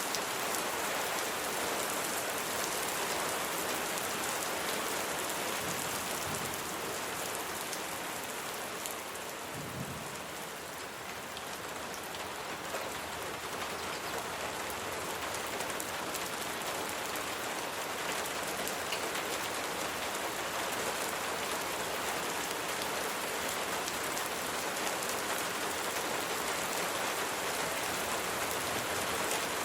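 Steady rain falling, a dense, even patter of drops on surfaces.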